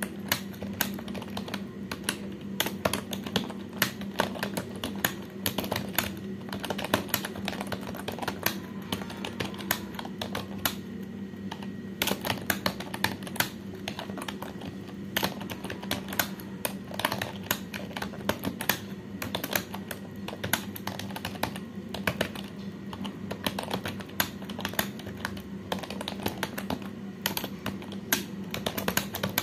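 Computer keyboard being typed on quickly and steadily, the keys clicking several times a second with only brief gaps, over a steady low hum.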